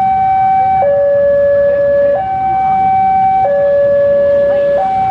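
Two-tone hi-lo siren alternating between a higher and a lower steady note, each held about a second and a quarter.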